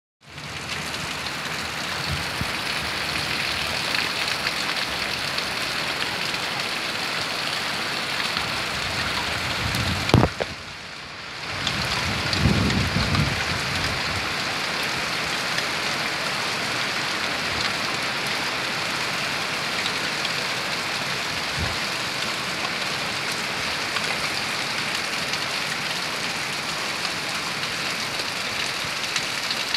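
Steady rain falling on leaves and a corrugated roof, an even hiss throughout. About ten seconds in there is a sharp knock and a short dip in the sound, followed by a brief low rumble.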